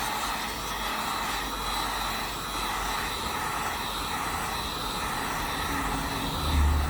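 Heat gun running steadily, its fan blowing hot air over the phone's back glass to soften the adhesive. A low rumble joins near the end.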